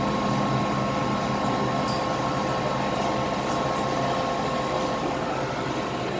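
Steady hum of an underground metro station's ventilation: an even rush of air noise with a few faint constant tones running through it.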